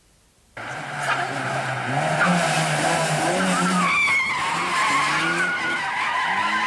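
Toyota Celica GT-Four rally car's turbocharged four-cylinder engine, starting suddenly about half a second in and revving up and down through a hairpin, with the tyres squealing as it slides.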